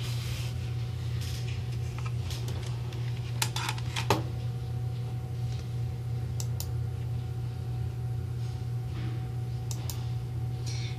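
Computer mouse clicking a few times, sharp single and paired clicks, over a steady low hum.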